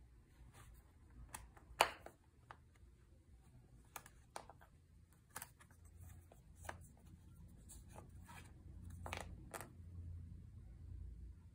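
Cardboard tokens being punched out of a board game punchboard: scattered small snaps and clicks, the sharpest about two seconds in, with the sheets of card shifting and sliding.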